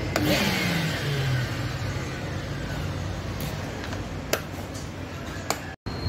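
Wet-and-dry vacuum cleaner's electric motor whining down: just after the start, both a high whine and a lower hum fall steadily in pitch over about two seconds as the motor slows. A few sharp handling clicks follow near the end.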